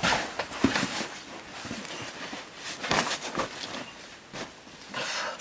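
A rock climber's hands and rubber-soled climbing shoes scuffing, scraping and tapping against the rock as he moves between holds on an overhang. There are a few sharp scrapes at the start and a strong one about three seconds in.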